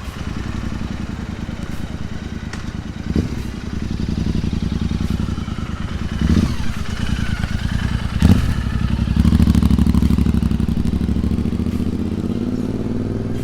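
Royal Enfield Continental GT 650's 648 cc parallel-twin engine running through a custom slip-on exhaust, idling with three short throttle blips about three, six and eight seconds in, then held at higher revs for a few seconds before easing back down.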